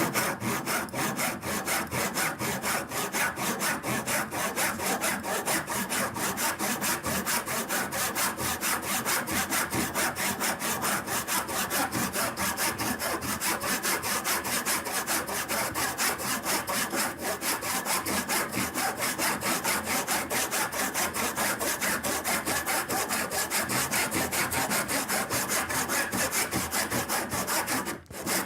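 Entry-level tenon saw crosscutting a piece of oak about 2 inches wide, in continuous, even back-and-forth strokes. It is a hard-going cut that takes real effort, with one brief pause near the end.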